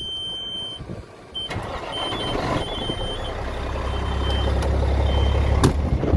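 Caterpillar C12 inline-six diesel in a Peterbilt 379 cranking and catching about a second and a half in, then running with a low rumble that grows louder. A high warning beep sounds on and off over it, and there is a sharp knock near the end.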